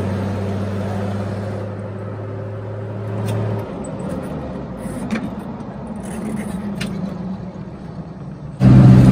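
Car driving on a paved road, heard from inside the cabin: a steady engine hum over tyre noise, the hum easing off about a third of the way in, with a few faint clicks. Just before the end a much louder sound cuts in abruptly.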